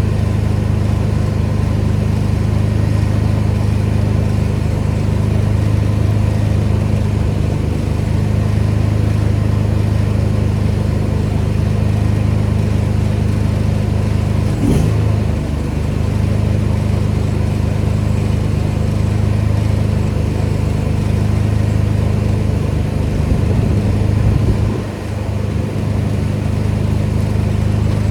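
Pressure washer's engine running steadily with a low drone, its pitch briefly dipping and recovering about halfway through and its level dropping for a moment near the end.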